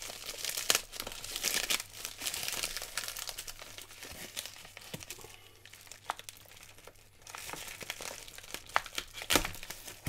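Plastic poly mailer crinkling and crackling as it is handled and slit along its edge with a utility knife, with many small irregular crackles and clicks.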